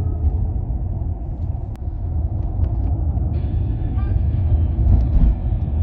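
Inside a moving car: steady low rumble of engine and road noise while driving, with a higher hiss joining about three seconds in.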